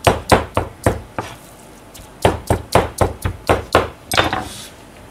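Kitchen knife chopping raw chicken meat into mince on a plastic cutting board: sharp, even knocks at about four a second, in two runs with a pause of about a second between them, then a brief scrape near the end.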